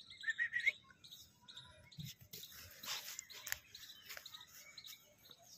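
A German shepherd puppy whimpering in a quick run of short, rising high notes in the first second, with birds chirping in the background.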